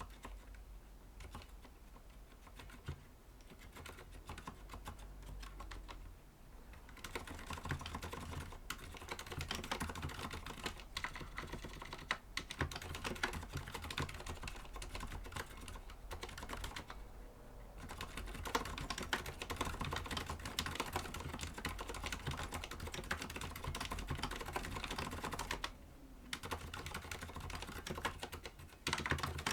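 Continuous typing on a mechanical keyboard with Cherry MX Silent Red (low-noise linear) switches: a dense, steady stream of soft keystrokes that pauses briefly three times.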